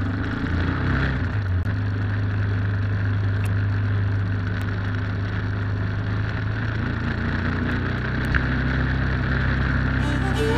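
Trail motorcycle's single-cylinder engine running steadily under way.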